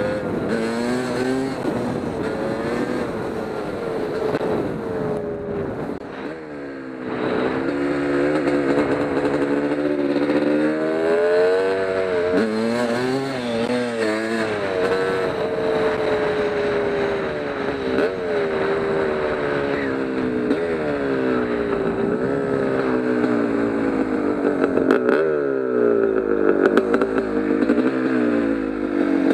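Kawasaki KX250 single-cylinder two-stroke dirt bike engine under way, its pitch rising and falling as the throttle opens and closes. It drops off and goes quieter about six seconds in, then climbs hard again about a second later.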